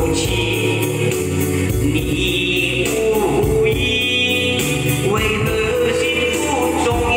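A man singing into a handheld microphone over electronic keyboard accompaniment with a steady drum beat.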